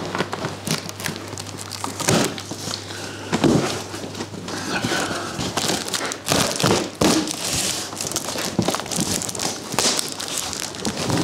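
A large cardboard box being opened by hand: its flaps are pulled back and the cardboard and packing inside rustle and crinkle in irregular bursts, with scattered knocks.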